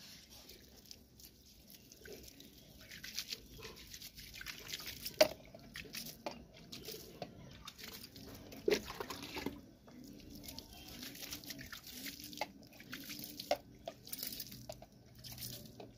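Water sprinkled by hand from a plastic cup onto loose soil, falling in scattered drips and splashes as a freshly sown seed bed is watered.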